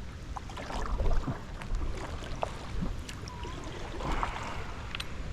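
Small splashes, drips and light knocks of a kayak moving through calm water, over a low rumble of wind on the microphone.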